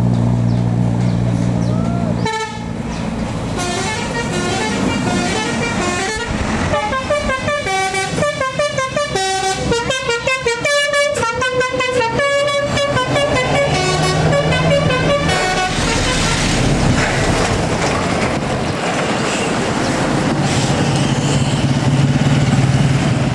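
Tourist bus's 'telolet basuri' multi-tone horn playing a fast melody of quick stepped notes, starting a couple of seconds in and lasting about thirteen seconds, over the bus engine running. After the horn stops, engine and road noise carry on.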